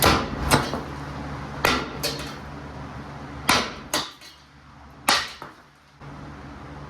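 Sharp metal clanks and knocks, about seven in an irregular run over five seconds, as of a tool or hammer striking metal, over a steady low hum that drops away about four seconds in.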